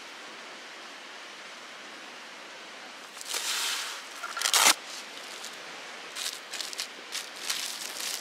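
Steady hiss of falling water. About three seconds in a louder rush of water swells and peaks sharply a second and a half later, followed by a few short clatters near the end.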